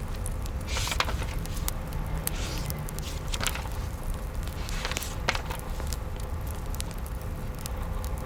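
Wood fire crackling: irregular sharp snaps and pops over a low steady rumble.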